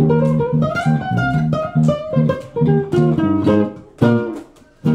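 Guitars, one of them acoustic, playing an instrumental passage of plucked notes with a falling melody; the playing breaks off briefly near the end before the next phrase starts.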